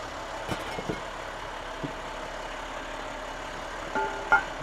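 Cast-iron catch basin grate being levered off its drain with a hawkbill sledgehammer: a few light knocks early, then two sharp clanks with a metallic ring about four seconds in as the grate shifts off the rim. A vacuum truck's engine idles steadily underneath.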